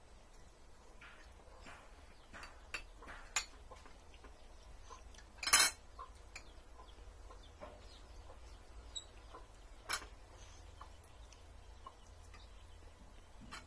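Spoons and forks clinking and scraping on ceramic plates during a meal: scattered light clinks, the loudest about five and a half seconds in and another near ten seconds.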